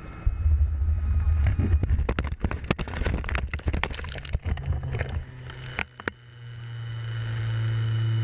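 Helicopter crashing into snow, heard from inside the cabin: the low drone of engine and rotor, then from about two seconds in a dense run of hard impacts, crunching and scraping as the cabin rolls over. After a last knock near six seconds, a steady low hum swells up.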